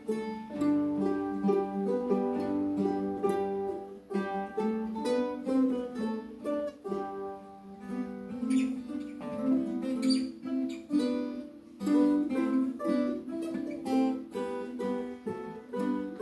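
Ensemble of ukuleles and acoustic guitars playing a French carol together, a steady stream of plucked notes over chords.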